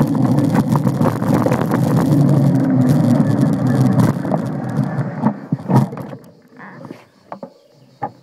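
Mountain bike riding over a rough dirt trail: steady rumbling of the tyres with dense rattling and clicking from the bike. About five seconds in it slows and the rumble drops away, leaving scattered clicks and knocks.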